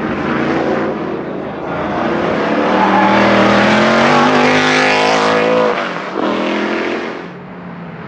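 Lola T70 Mk3B race car's Chevrolet 5.0-litre V8 accelerating hard past, its loud exhaust note climbing steadily in pitch for about three seconds. It then breaks off abruptly, comes back briefly and dies away.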